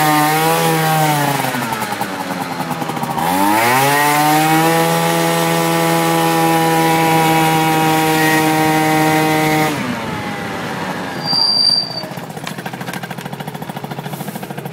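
Yamaha Jog RR scooter's 50cc two-stroke engine revved up briefly, then revved again and held at steady high revs for about six seconds before dropping back to a pulsing idle. A short high-pitched squeal sounds about two seconds after the revs drop.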